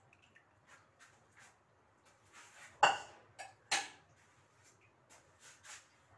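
Aluminium saucepan clanking as it is handled and set down: faint taps, then a sharp ringing clank about three seconds in, a small knock, a second loud clank, and a few light taps after.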